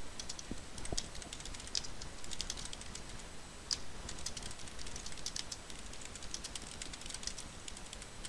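Typing on a computer keyboard: irregular runs of light key clicks with short pauses between them.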